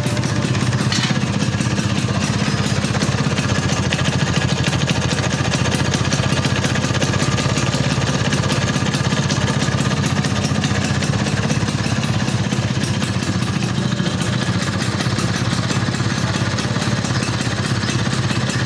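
Vespa PTS scooter's two-stroke single-cylinder engine idling steadily on its newly fitted carburettor.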